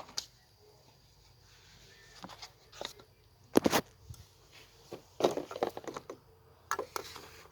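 Scattered knocks, clicks and rustling clatter of parts being handled, as the engine's air intake is refitted; the loudest knock comes about halfway through.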